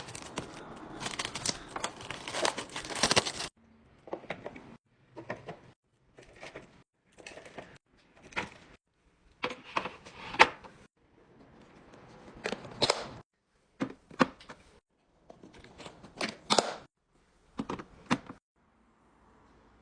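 Plastic packaging crinkling and rustling as groceries are handled, with sharp clicks and taps mixed in. A dense stretch of rustling gives way, about three and a half seconds in, to a string of short separate bursts roughly a second apart with silence between.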